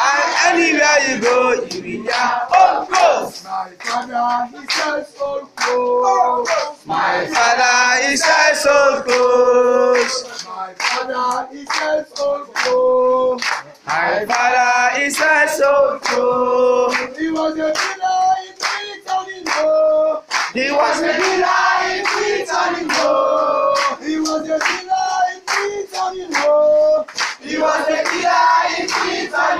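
A group of young men and women singing together, with hand claps keeping time.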